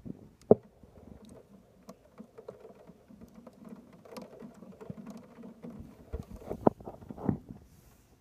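Heavy rain shower, with an irregular patter of drops and drips striking nearby surfaces. A few louder knocks of drops land about half a second in and twice near the end.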